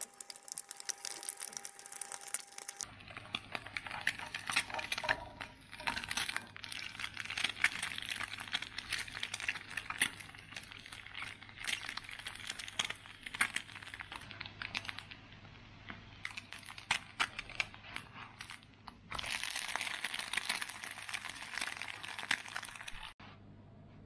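An egg frying in a little oil in a nonstick frying pan, sizzling with many sharp crackling pops. It grows louder for a few seconds near the end, then stops abruptly.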